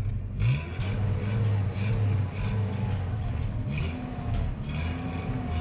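A motor vehicle's engine running steadily, its pitch rising briefly about half a second in.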